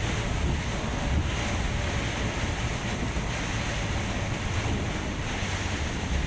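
Heavy rain beating on a moving Scania coach as it drives along a flooded road, as a steady hiss over a constant low rumble from the bus and its tyres on the wet road.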